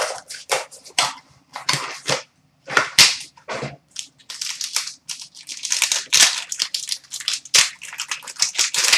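Plastic wrapping on a pack of trading cards crinkling and tearing as it is opened by hand: irregular sharp crackles throughout.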